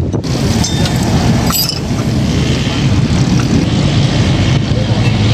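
Suzuki Swift driving along, with a steady low engine and road rumble and a few light clicks.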